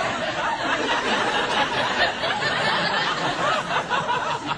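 Studio audience laughing steadily, many voices overlapping.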